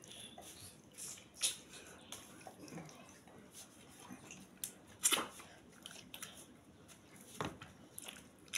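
Eating soft amala and okra stew by hand: faint wet squelches of fingers in the sticky soup and lip smacks while chewing, with a few sharper smacks about a second and a half, five and seven and a half seconds in.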